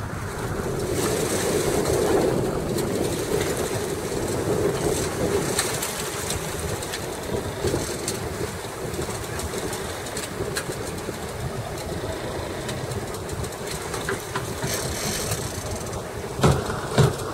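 Fishing boat's engine running steadily under sea and wind noise, with two sharp knocks about half a second apart near the end.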